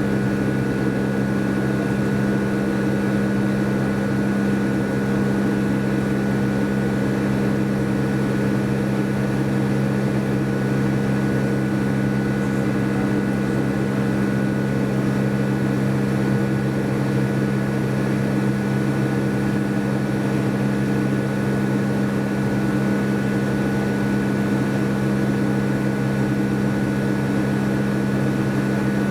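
Steady drone inside the cabin of a Boeing 757 with Rolls-Royce RB211 jet engines: a constant low hum with a fainter high whine over a hiss of rushing air, unchanging throughout.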